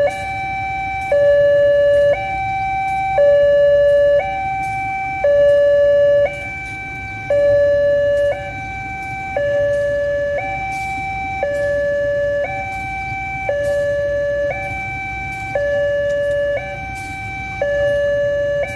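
Railway level-crossing warning siren sounding from horn loudspeakers on the crossing signal: a two-tone hi-lo wail, switching between the two pitches about once a second. It is the signal that the crossing barriers are closing for an approaching train.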